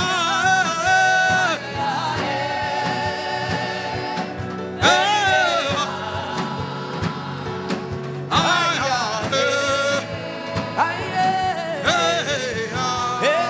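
Gospel worship song: a voice sings long, wavering held notes in phrases, over sustained instruments and a steady beat.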